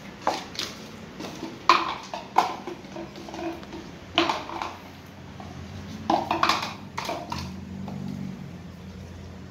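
A small clear plastic cup being knocked and pushed across a tiled floor by a puppy: irregular sharp clacks and clatters in short groups, loudest about two seconds in and again just past six seconds.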